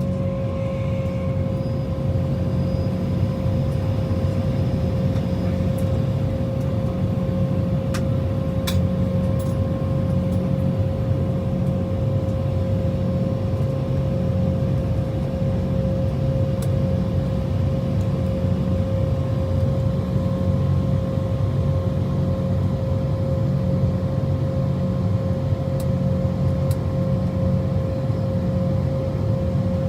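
Cabin noise inside an Embraer E190 airliner on the ground after landing: a steady whine over a low, pulsing rumble from the idling jet engines and aircraft systems. Two sharp clicks sound about eight and nine seconds in.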